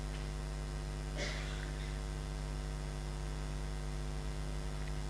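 Steady electrical mains hum in the recording, during a pause in speech, with a faint short sound about a second in.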